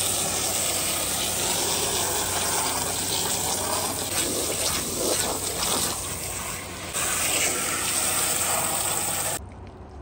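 Jet of water from a hose spray wand splashing onto hanging towels and the wooden shed wall: a steady rush of spray that gets a little louder about seven seconds in and cuts off suddenly shortly before the end.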